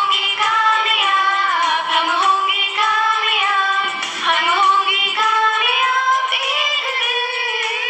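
A woman singing a Hindi prayer song solo in a high voice, gliding between long held notes.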